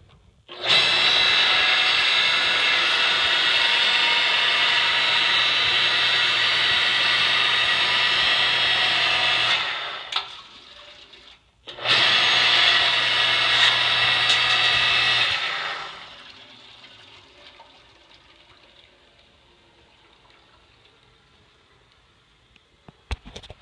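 Earthquake 5-ton electric log splitter running: its electric motor and hydraulic pump give a loud steady whir over a low hum for about nine seconds, stop, run again for about three and a half seconds, then wind down.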